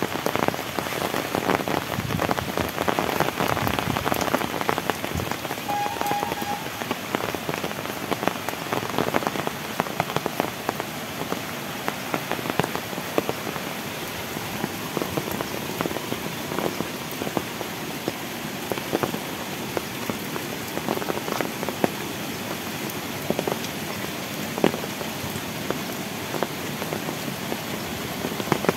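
Heavy rain pouring steadily, with a dense patter of drops striking nearby surfaces; it is a little heavier for the first ten seconds or so.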